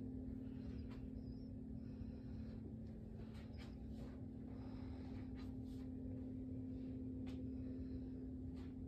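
A steady low hum holding one pitch, with faint scattered clicks and rustles.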